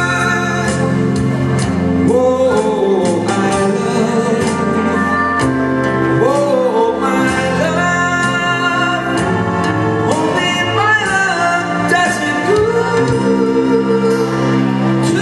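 Music with singing: sustained backing chords with a voice holding and bending long notes.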